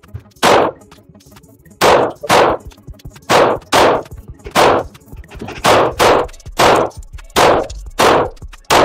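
Semi-automatic pistol fired repeatedly at an indoor range: about a dozen shots at an uneven pace, some in quick pairs about half a second apart, each with a short echo.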